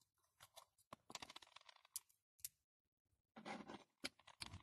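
Faint light clicks, taps and scuffs of small toy figurines being handled and tapped on a wooden surface, with a short stretch of dead silence a little past halfway.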